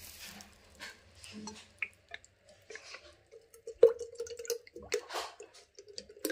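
Cooking oil poured from a bottle into a stainless steel jug. The pour begins about four seconds in with a sharp clink, then trickles and splashes with a ringing note from the steel vessel. Before it come a few light handling clicks.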